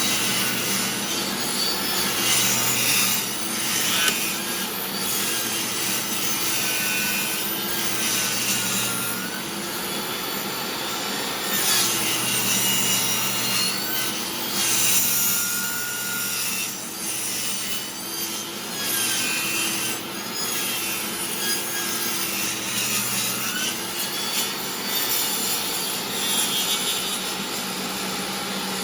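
DeWalt table saw running, its blade cutting into a wooden board that is being turned against it to cut a disc. A steady motor hum sits under a rasping cutting noise whose pitch rises and falls as the wood is fed.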